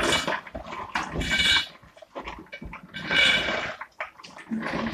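Soaked black-eyed peas being tipped into a metal saucepan, in a few separate pours of about half a second each.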